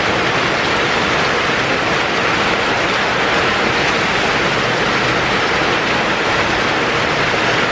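Heavy rain pouring down: a loud, steady hiss of a downpour.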